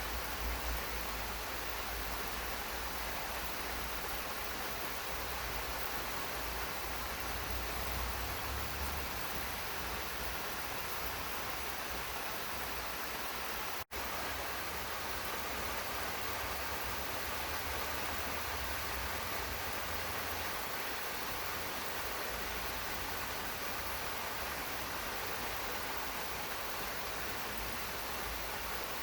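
Steady rain falling, an even hiss with no let-up. It cuts out for an instant about halfway through, then resumes unchanged.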